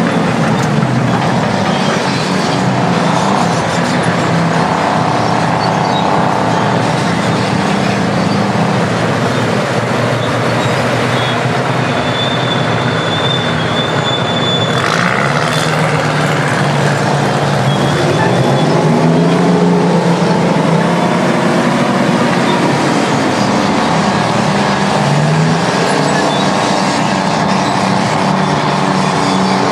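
Detroit two-stroke diesel engines of Terex bulldozers and scrapers working, engine pitch rising and falling as they come under load and ease off. There is a short hiss about halfway through.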